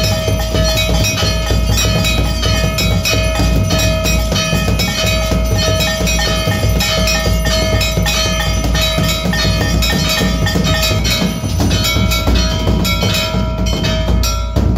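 Hindu temple aarti bells and drum clanging continuously in a rapid beat, with a steady ringing bell tone held over it.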